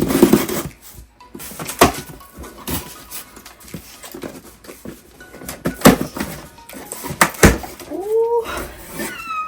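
Boxes and packaging being handled during an unboxing: scattered clicks, knocks and rustles, with a noisy rustle at the start. Near the end comes a short vocal sound that rises in pitch.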